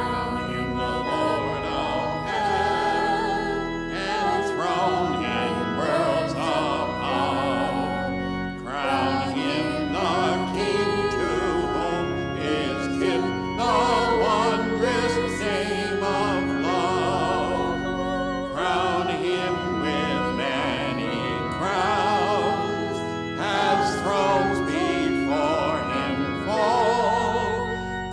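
Hymn sung by several voices with organ accompaniment: held sung notes with vibrato over sustained organ chords.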